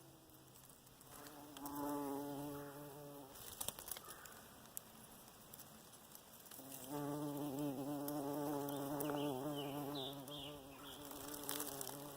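A large flying insect buzzing with its wings as it flies close by, heard twice: for about two seconds starting a second in, then again for about four seconds from around seven seconds in.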